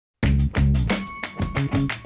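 Intro music starting abruptly just after the start, with strong regular beats and a low bass line.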